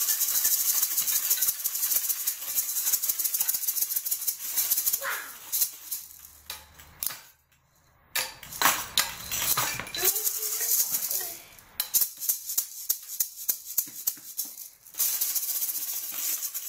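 Improvised percussion of rattles and shakers: a dense, hissy shaking with scattered clicks and knocks. It dies away to near silence about seven seconds in, picks up again with sparse knocks and clicks, and returns to full shaking near the end.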